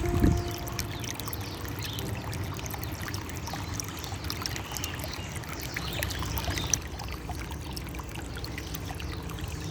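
Outdoor ambience: a steady low rushing noise, like wind on the microphone, with faint scattered bird chirps.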